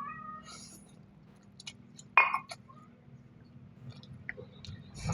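Quiet chewing and light clinks of utensils on a bowl, with scattered small clicks. A short, louder pitched sound comes about two seconds in.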